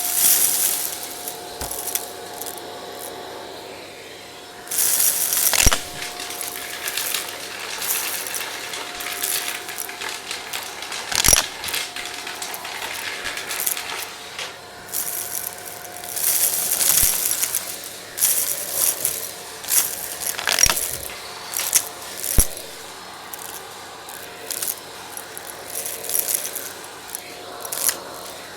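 Vacuum cleaner with a brush attachment running with a steady whine while debris is sucked up in repeated bursts of crunchy, rattling crackle. A few sharp knocks come from the brush striking the stairs.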